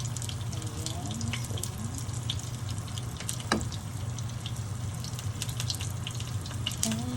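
Running, splashing water with scattered small clicks and knocks, over a steady low hum.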